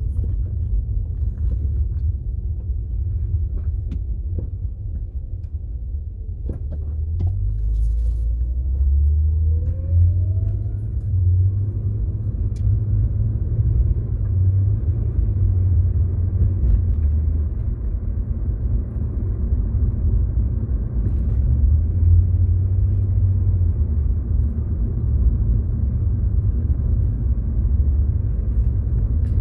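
Low, steady rumble of a car running or being driven, with an engine tone rising in pitch about nine to eleven seconds in.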